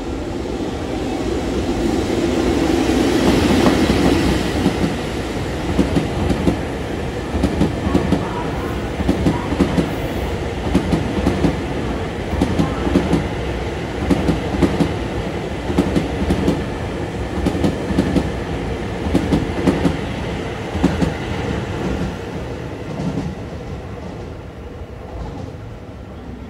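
An electric locomotive hauling new Seibu 40000 series cars on delivery passes close by: a swelling rumble as the locomotive goes past, then a steady clickety-clack of the towed cars' wheels over rail joints, fading as the train draws away near the end.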